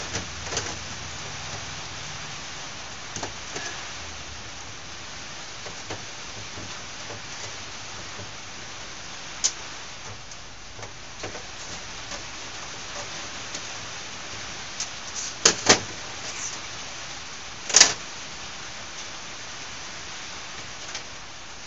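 Small metal clicks and clinks of a Honda XR500 carburetor and its parts being handled and taken apart on a metal workbench, over a steady hiss. The clicks are scattered: a pair close together past the middle and a sharper, louder one shortly after.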